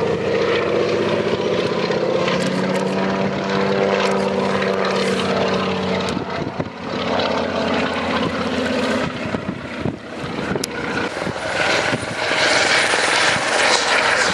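Antonov An-2 biplane's nine-cylinder radial engine and propeller droning steadily as it flies past. About ten seconds in this gives way to a Eurocopter EC120 helicopter in flight: rotor noise with a thin, high, steady whine.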